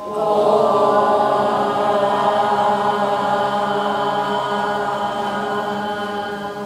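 A group of students' voices holding one long vowel sound together in chorus at a steady pitch, the way a class sounds out a vowel from a pronunciation chart. It starts suddenly and slowly gets quieter towards the end.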